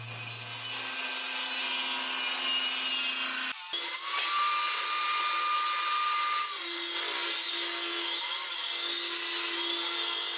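Table saw running and ripping a long wooden board: a steady hiss with a high whine that holds for a couple of seconds in the middle and then falls away, followed by a lower hum.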